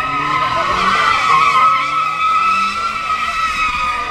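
A car's tyres screeching without a break as it spins doughnuts, its engine revving in rising pulls underneath. Faint crowd voices are in the background.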